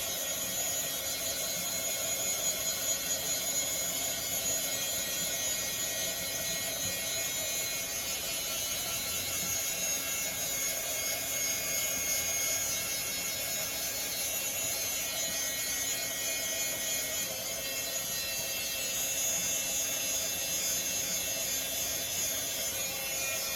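Handheld craft heat tool blowing steadily, a constant whooshing whir with a faint steady hum in it, used to dry chalk paste.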